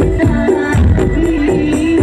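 Loud music played through a large carnival sound system: a stepping melody over heavy bass and a steady beat with rattling percussion.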